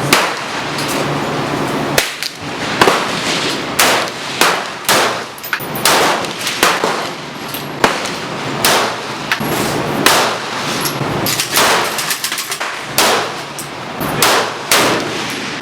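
Gunfire at a shooting range: about two dozen shots at an uneven pace, several guns firing and overlapping, each crack followed by a short ringing tail.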